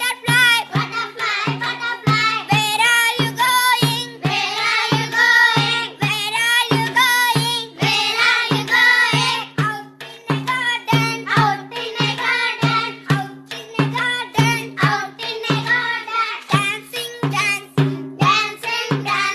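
A song about butterflies with a wavering, high sung voice over a steady beat of about two beats a second.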